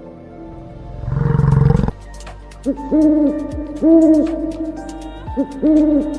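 A short roar from a big cat about a second in, then an owl hooting: a series of deep, rounded hoots, some in quick short-long pairs.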